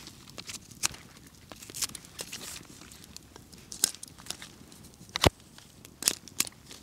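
A knife whittling a small branch into a skewer: irregular short scraping strokes and sharp clicks of blade on wood, with a campfire crackling close by and one louder crack about five seconds in.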